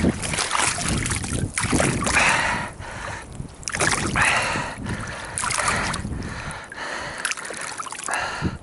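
Lake water sloshing and splashing in a series of uneven swishes.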